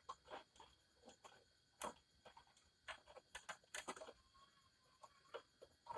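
Faint, irregular clicks and light taps: hands handling the plastic casing, circuit board and wiring of an opened mini stereo system during disassembly.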